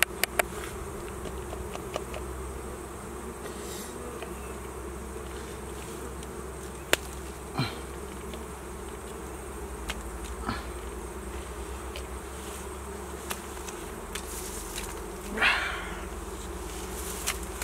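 Honeybees buzzing steadily around their open comb, with a few brief louder buzzes as bees pass close by.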